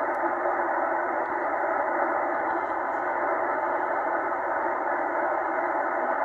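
Tecsun H-501X shortwave receiver hissing with steady band static in upper-sideband mode, squeezed into the narrow single-sideband filter, as it is tuned slowly across the 3.4 MHz aeronautical range with no signal coming through.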